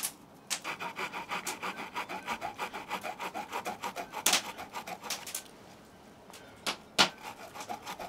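Swiss Army knife saw blade sawing through a thin wooden stick in quick, even strokes, about five a second, stopping after about five seconds; two sharp clicks follow near the end.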